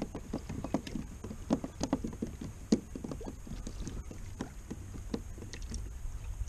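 Small irregular knocks and slaps of water against a plastic pedal kayak's hull, several a second, the sharpest about three seconds in, over a steady low rumble.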